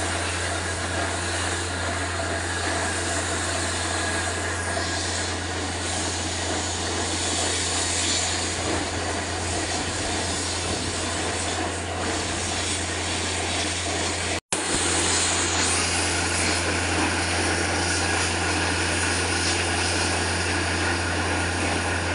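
Borewell drilling rig running steadily: a constant low engine hum under a loud rushing mechanical noise. The sound cuts out for an instant about two-thirds of the way through and picks up again unchanged.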